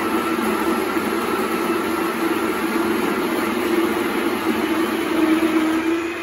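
The Breville Barista Express's built-in conical burr grinder running steadily, grinding coffee into the portafilter with a loud whirring hum. It starts to wind down right at the end.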